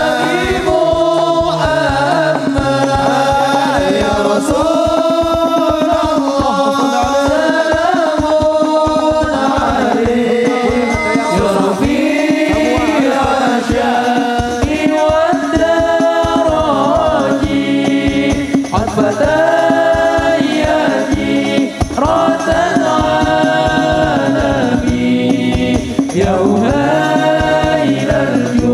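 Male voices singing an Islamic devotional song (sholawat) into microphones over a PA, a lead voice with others joining, over a steady drum beat.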